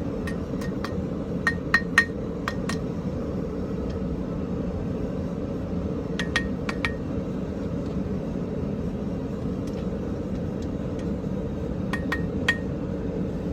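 Hammer tapping hot iron on an anvil while bending the tines of a forged fork, sharp ringing strikes in three short runs: about eight in the first three seconds, then three around six seconds in, then three near the end. A steady low rumble runs underneath.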